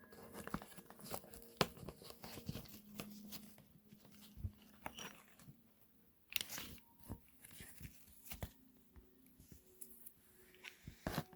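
Faint handling noises of the lever parts and their packaging: scattered light clicks and rustling.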